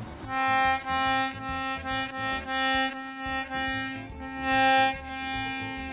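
An accordion reed sounded on its reed block in about nine short blasts of the same note, with a buzzing, rattling edge ('ガシャガシャ'). The strange sound comes from the reed's leather valve being curled and not lying flat on the reed plate.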